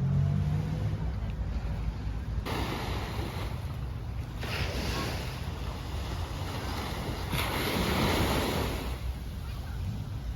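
Sea surf breaking and washing in, rising in several surges a couple of seconds apart, with wind rumbling on the microphone.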